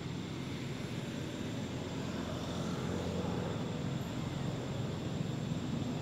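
Steady low rumble of a distant engine, slowly growing louder.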